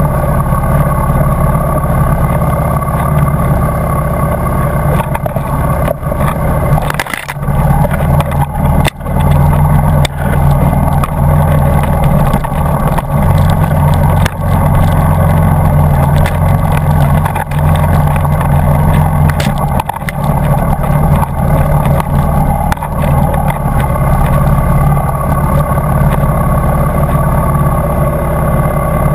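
Dirt bike engine running close to the microphone at low, changing revs, the note stepping up and down, with knocks and rattles from riding over rough ground.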